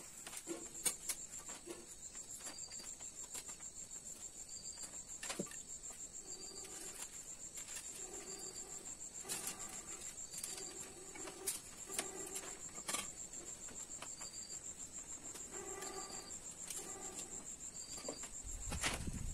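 A cricket trilling steadily, a continuous high, rapidly pulsing note, with scattered light clicks and knocks of split bamboo slats being handled; louder knocking starts near the end.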